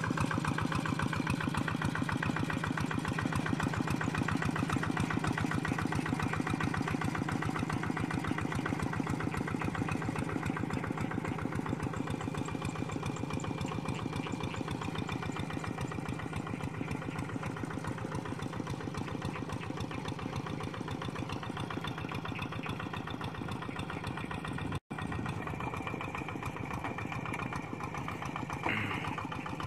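Single-cylinder diesel engine of a two-wheel hand tractor chugging steadily under load as it drags a leveling board through flooded paddy mud. It grows gradually fainter as the tractor moves away.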